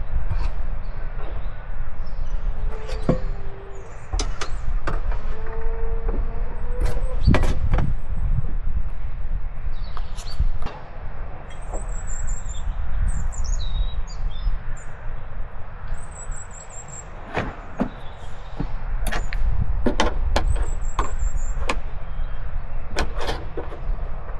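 Wind rumbling on the microphone, with scattered clicks and knocks as a pancake-mix box, egg carton, plastic milk jug and steel pot are picked up and set down on a plastic folding table. Short runs of high bird chirps come and go.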